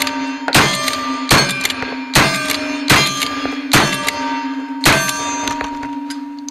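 1866 Yellowboy lever-action rifle firing black-powder rounds in quick succession, six shots about 0.8 s apart, each followed by the clang of a struck steel target ringing on.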